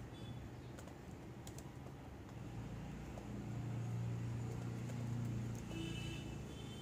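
Laptop keyboard being typed on, a handful of separate keystrokes, over a steady low hum that grows louder in the middle.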